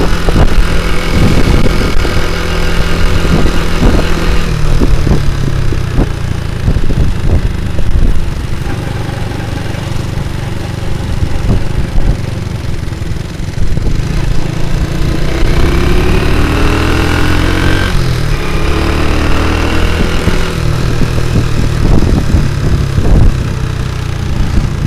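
Honda C70 motorcycle with a Honda Grand single-cylinder four-stroke engine running while ridden. About two-thirds of the way through the revs climb, drop suddenly, then climb again.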